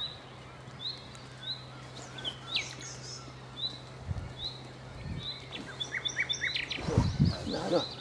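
Common nightingale singing: a slow series of short, rising whistled notes repeated about once a second, then a faster, louder phrase of varied notes near the end.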